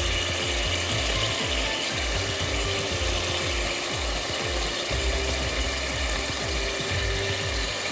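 Hand pepper mill grinding black pepper, a rapid continuous grinding click.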